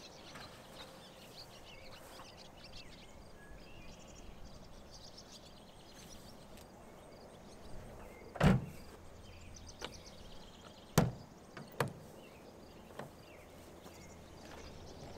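Gear being stowed in the bed of a pickup under an open truck topper: a few knocks and thumps, the heaviest about halfway through and two sharper knocks a few seconds later, over quiet outdoor ambience with faint bird chirps.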